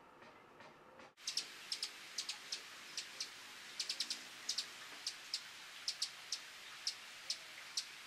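Hummingbird chip calls: short, sharp, high chips repeated irregularly about two or three times a second, starting about a second in, over a steady background hiss.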